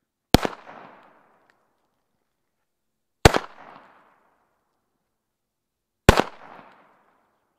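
Three Sauer Feuerwerksmanufaktur black-powder salutes (Kanonenschläge) going off one after another, about three seconds apart. Each is a single sharp bang with a short echoing tail, a bang the maker's tester calls good and dull, as it should be.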